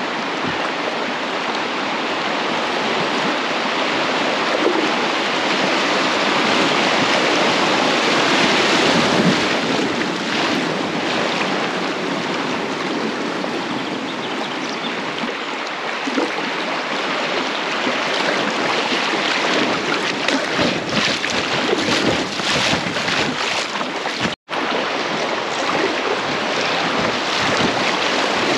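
Fast-flowing river water rushing and splashing steadily around a small inflatable packraft, with a momentary dropout about 24 seconds in.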